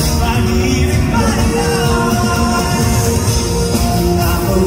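Live rock band music with a male lead vocal sung into a microphone, recorded on a phone from the crowd in a concert hall.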